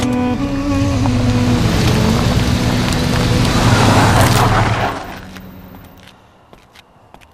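Car engine revving hard as the car pulls away with its wheels spinning on dirt. The noise builds to its loudest about four seconds in, then dies away quickly.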